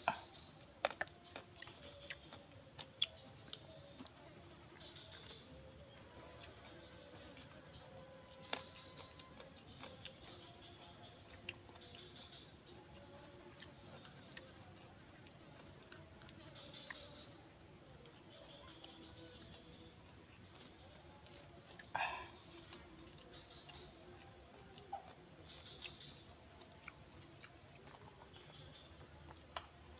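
Steady, high-pitched chorus of insects, most likely crickets, with a few small clicks and one brief louder sound about 22 seconds in.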